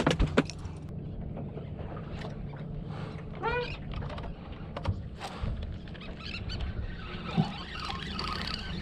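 A few sharp knocks as a plastic cooler lid is worked on an aluminium boat deck, then a steady low hum with scattered light clicks and a short rising call about three and a half seconds in.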